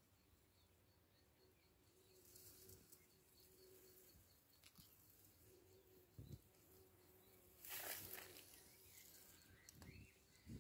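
Near silence: faint outdoor ambience with a faint, evenly repeated high ticking, a few low thumps, and a brief rustle about eight seconds in.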